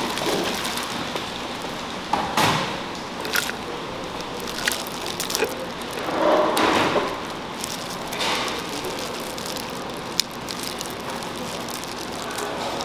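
Disposable plastic gloves crinkling and grilled shrimp shells cracking as a shrimp is peeled by hand, with a few sharp crackles and a longer stretch of rustling about halfway through, over steady background noise.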